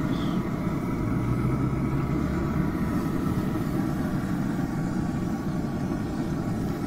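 Z Grills pellet grill running during its burn-in, a steady hum from its fan and fire with no change in pitch.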